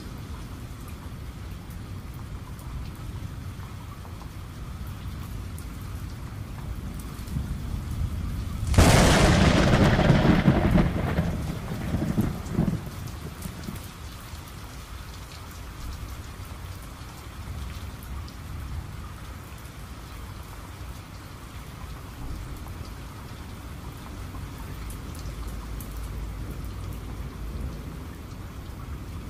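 Steady rain, with one thunderclap about nine seconds in: a sudden sharp crack that rolls off into a rumble over a few seconds.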